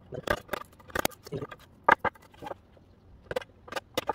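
Hand wood chisel cutting a notch into the end of a wooden board: about a dozen irregular sharp taps and cracks as the blade bites and chips split off.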